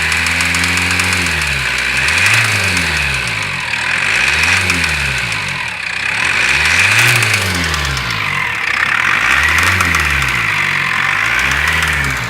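GAZelle Next's Cummins ISF 2.8 four-cylinder diesel being revved up and back down about five times in a row, with a knock from the engine that has just started.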